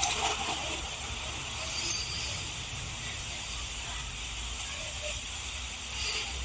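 Steady hiss over a low rumble, broken by a few brief faint ticks and blips.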